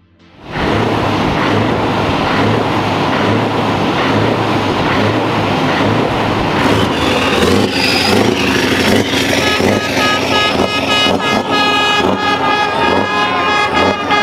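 Heavy truck engine running loud, cutting in abruptly about half a second in. From about halfway a set of truck air horns blows a chord of several notes over it, with one note sliding up near the end.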